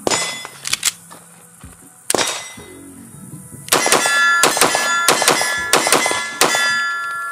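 Langdon Tactical Beretta PX4 Storm Compact 9mm pistol firing 124-grain Federal Punch hollow points. After a few single sharp cracks in the first two seconds, a rapid string of about ten shots starts about three and a half seconds in, each followed by a metallic ringing.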